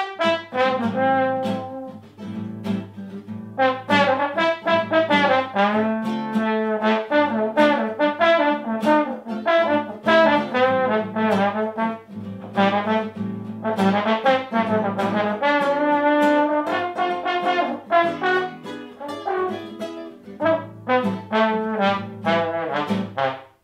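Trombone playing a melody, with smooth glides between some notes, over plucked chords on a nylon-string classical guitar. The music cuts off suddenly near the end.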